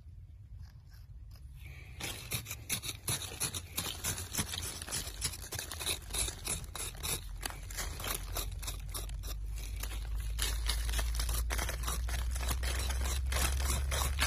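Hand tool scraping and digging through loose gravelly soil: many rapid small scrapes and crunches of grit, starting about two seconds in. Underneath is a low steady hum that grows stronger from about six seconds in.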